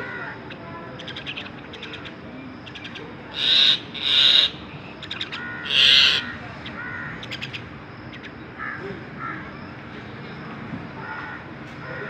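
Common myna calling: rapid clicking chatter and short whistled notes, with three loud harsh calls about three and a half, four and six seconds in.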